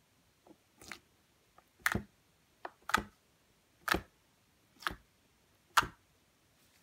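Fingertips poking into thick homemade slime, each press and release giving a short sticky pop, about one a second.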